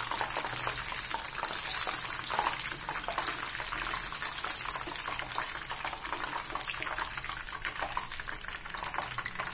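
Chicken wings in batter deep-frying in hot oil: a steady sizzle with dense, fast crackling pops, as the golden-brown pieces are lifted from the oil in a wire skimmer.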